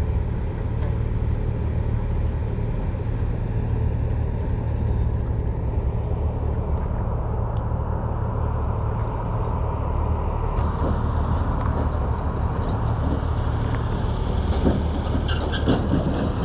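Heavy diesel engine running steadily with a low drone, with a few light knocks near the end.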